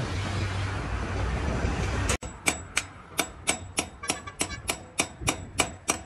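A steady drone with a low hum, then, after an abrupt cut about two seconds in, a run of sharp taps, roughly three a second and slightly uneven, each with a high ring.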